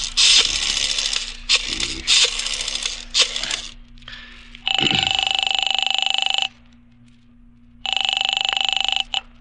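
Radio-drama telephone sound effects: a rotary dial turned in several rasping pulls, then the telephone ringing twice, a long ring and a shorter one with a pause between.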